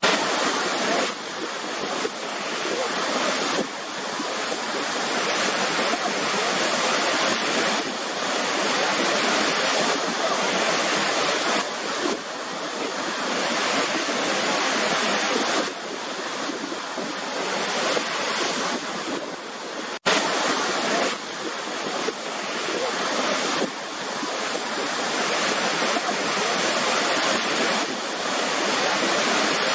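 Waterfall: a steady rush of falling water that swells and eases every few seconds. It cuts out for an instant about twenty seconds in.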